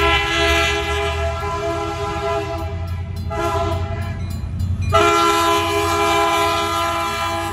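Canadian National diesel locomotive sounding its multi-chime horn for a grade crossing, over the low rumble of the approaching train. One long blast fades out about three seconds in, and a fresh, louder blast starts about five seconds in.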